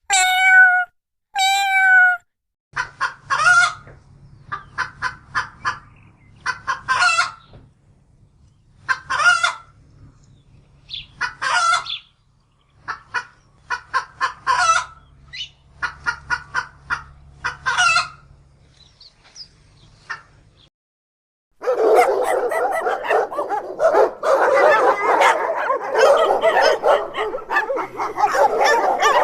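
Hens clucking and cackling in repeated quick bursts over a low hum. Two short falling cat meows open it, and about three-quarters of the way through it switches to loud, dense dog barking.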